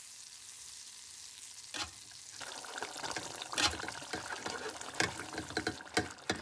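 Food sizzling in a hot frying pan: a steady hiss that fills with irregular popping crackles from about two seconds in.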